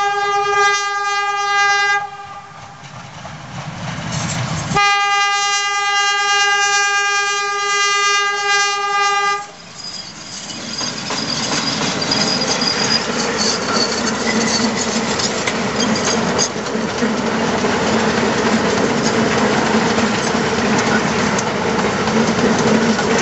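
Ex-Queensland Railways DH-class diesel-hydraulic cane locomotive sounding two long single-note horn blasts, the second ending about nine seconds in. The loco and its long rake of cane bins then rumble past close by, with the wheels clacking.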